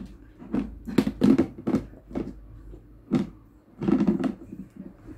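Hollow plastic knocks and clunks, about eight in a row at uneven intervals, from Tupperware square modular storage containers being handled and stacked against one another.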